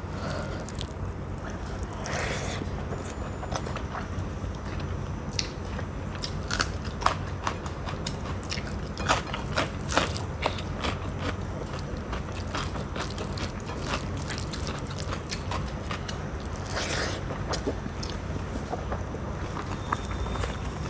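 A person chewing food close to the microphone, with scattered crunching and smacking clicks that bunch together in the middle and again near the end, over a steady low hum.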